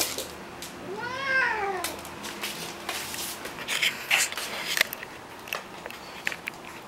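A cat meows once about a second in, its pitch rising and then falling. After it come scattered light clicks and scuffles, paws and claws on a wooden floor as a cat and a corgi puppy play-fight.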